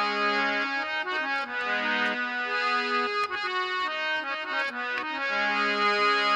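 Harmonium playing the instrumental introduction to a Rajasthani bhajan: a melody of held notes over lower sustained notes, before the singing comes in.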